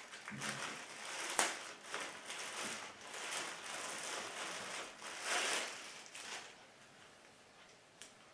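Rustling and crinkling of packaging and fabric as a cap is handled and taken out, with a sharp click about a second and a half in. The handling is loudest around five seconds in and dies down after about six and a half seconds.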